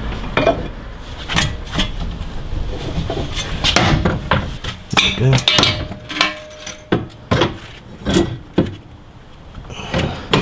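Irregular metallic knocks and clinks as a front camber arm and its loosened ball joint are worked into place by hand and tool in a car's wheel well.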